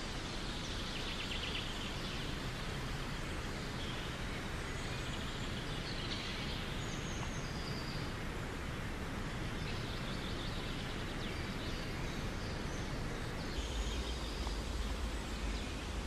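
Outdoor ambience: a steady hiss of background noise with scattered faint bird chirps and twitters. Near the end, a low rumble comes in.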